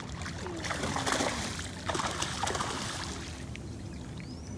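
Water splashing and sloshing as a hooked eel thrashes at the surface. It is busiest in the first half and settles toward the end.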